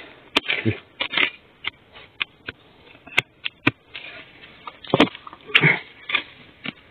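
A metal digging blade striking and scraping into soil and dry bamboo litter to dig out a wild bamboo shoot: irregular sharp knocks, about a dozen, with dry leaf rustling.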